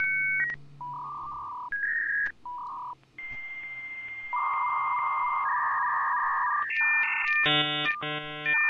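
Dial-up modem handshake: a string of steady electronic tones with short breaks, then a hiss with a steady whistle from about three seconds in, and a louder tone-and-hiss stretch. Fast buzzy chords come near the end as the modem negotiates the connection.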